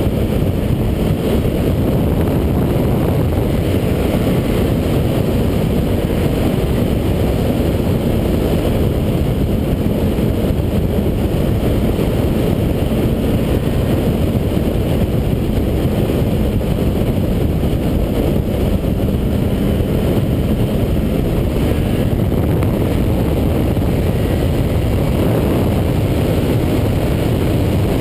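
Suzuki B-King's inline-four engine running steadily at cruising speed, heard from a bike-mounted camera and mixed with a constant rush of wind and road noise.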